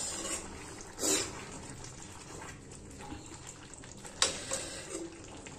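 Rice, peas and potato simmering in a metal pot with a steady bubbling hiss, while a perforated metal ladle stirs through it and scrapes against the pot, sharply about a second in and again about four seconds in.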